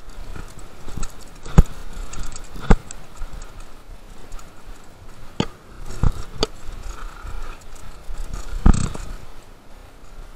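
Mountain bike clattering down a rough bike-park trail: irregular sharp knocks and rattles from the bike hitting bumps, over a steady rush of tyre and trail noise, with the hardest hits about one and a half seconds in and near the end.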